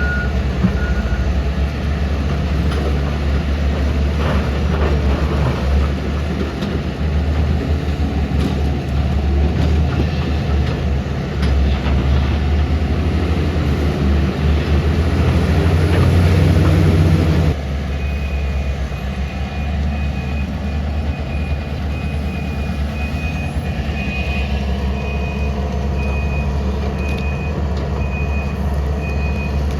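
Heavy excavator's diesel engine running steadily, with an alarm beeping briefly at the start. About two-thirds of the way in the sound changes abruptly, and a higher-pitched warning alarm beeps in a steady repeating pattern over the engine.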